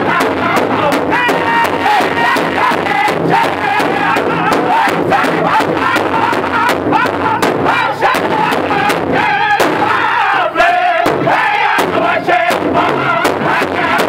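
Powwow drum group singing an intertribal song together around a large hide-covered powwow drum, striking it in a steady, even beat under high, wavering voices. The singing breaks off briefly a few times about two-thirds of the way through while the drumbeat carries on.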